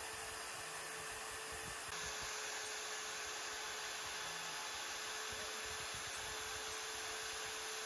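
710-watt router spindle of a desktop CNC running at a steady speed as a 15-degree V-bit engraves a shallow 0.5 mm pass in walnut: a steady whirring hiss with a faint constant tone.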